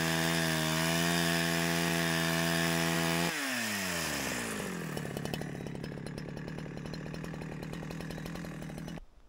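Two-stroke chainsaw at full throttle ripping lengthwise through a spruce log to free a slab. About three seconds in the throttle is released as the cut finishes: the engine note falls and the saw idles unevenly until the sound cuts off suddenly near the end.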